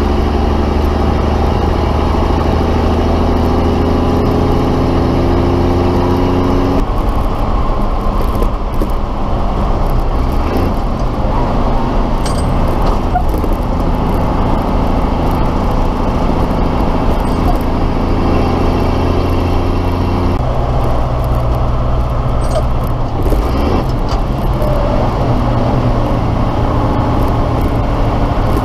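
The 1973 M342A2 deuce-and-a-half's multifuel diesel engine pulling the truck under way. Its pitch rises for about seven seconds, drops abruptly at a gear change, then runs steady, and changes again about two-thirds of the way through.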